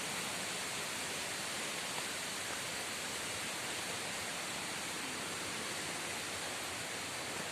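Steady rushing of a waterfall, an even hiss with no breaks.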